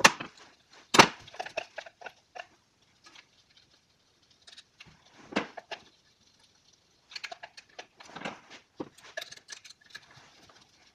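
Scattered metal clicks and clinks of a wrench on the bolts holding a Honda distributor to the cylinder head, with a sharp knock about a second in and clusters of quicker clicking later.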